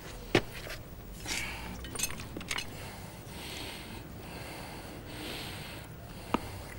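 Farrier's hammer driving nails through a horseshoe into the hoof: two sharp metallic taps about six seconds apart, the first the loudest, with a few lighter clicks and soft breathy noises between.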